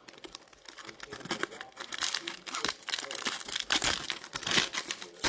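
Crinkling and rustling of plastic as trading cards are handled and sorted, in irregular crackly bursts that get louder about two seconds in.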